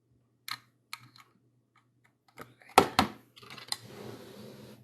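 Scattered light clicks, then a sharper double knock about three seconds in and a second of rustling, from small electronics and cables being handled and plugged in. A faint steady low hum runs underneath.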